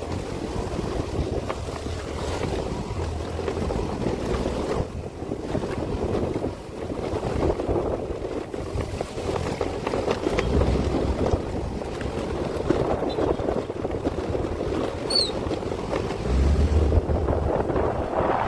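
Wind buffeting the microphone of a moving vehicle, with steady road noise and low rumbling gusts that swell and ease.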